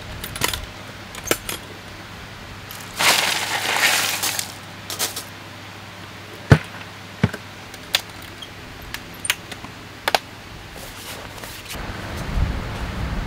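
Hard-sided cooler being opened with a few clicks, then a rustle of ice and a run of sharp clinks as glass beer bottles knock against each other and the ice while one is pulled out. A low thump near the end.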